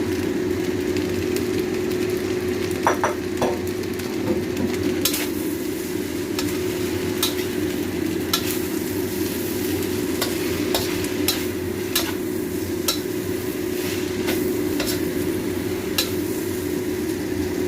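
Mie goreng (fried noodles) sizzling in a hot pan while being stirred, with a utensil clicking against the pan about once a second and a brief metallic clink early on. A steady hum runs underneath.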